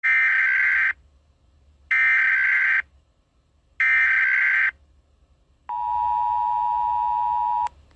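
Emergency Alert System opening: three short screeching SAME header data bursts about a second apart, followed by the two-tone EAS attention signal held for about two seconds.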